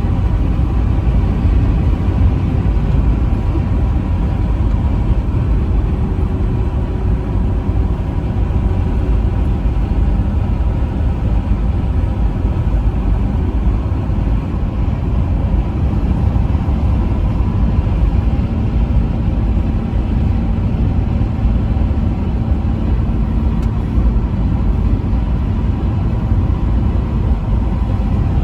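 Truck driving steadily on the highway: a continuous low rumble of engine and road noise with no horn blasts.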